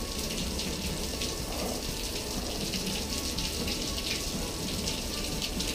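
Steady rushing noise, like rain or running water.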